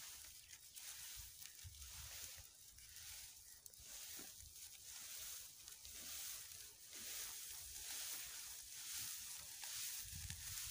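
Faint, repeated rustling and crackling of dry rice straw being twisted and worked by hand.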